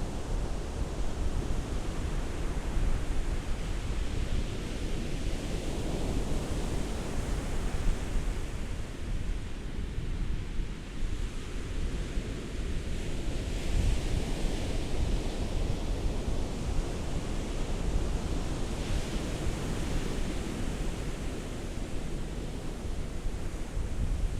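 Ocean waves breaking and washing on a shore: a steady rush of surf, with swells of hiss a few seconds apart as waves break, about six, fourteen and nineteen seconds in.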